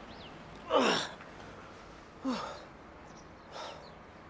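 A man groaning and gasping as he is woken: a loud groan falling in pitch about a second in, and a shorter, softer one a little past two seconds.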